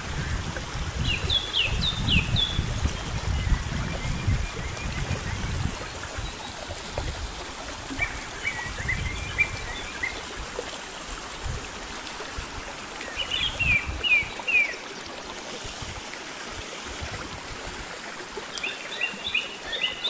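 Small mountain stream running and splashing over rocks. A bird chirps in short phrases about four times. Wind rumbles on the microphone during the first several seconds.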